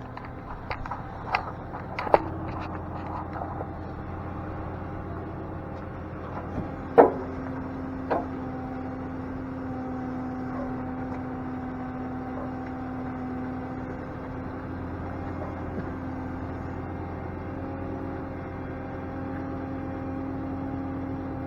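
Rollback tow truck's hydraulic bed being run out, a steady whining hum of the truck's engine and hydraulic pump under load. A few sharp clunks come in the first eight seconds, the loudest about seven seconds in, after which the whine holds steady.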